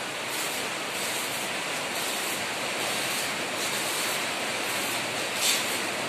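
Electric arc welding on a steel angle-iron ladder: the arc gives a steady hissing, sputtering noise, with a short louder flare about five and a half seconds in.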